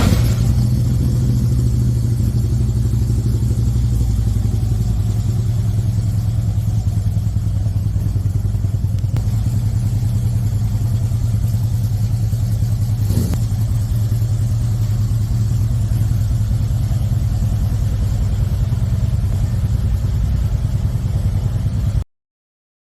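Harley-Davidson 2013 Road Glide CVO's Twin Cam 110 V-twin engine idling steadily with an even, rapid pulsing beat, run to check it after a crankshaft repair. There is one short click about 13 seconds in.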